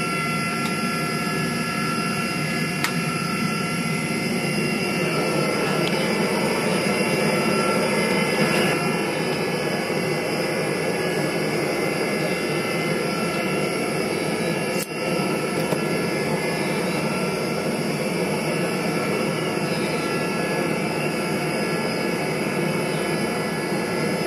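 Gas burner of a small home-built gas-fired furnace running steadily at full flame, with a brief click about two-thirds of the way through.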